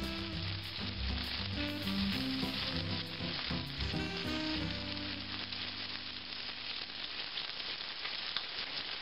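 Chicken breasts frying in hot oil in a stainless-steel skillet over medium-high heat: a steady crackling sizzle.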